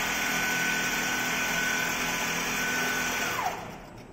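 Richpeace automatic template sewing machine stitching at full speed, its motor and needle drive running with a steady high whine. The whine falls in pitch and stops about three and a half seconds in as the machine comes to a halt.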